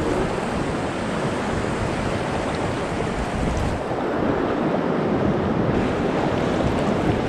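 Swollen river water rushing and splashing right at a microphone held at the water's surface.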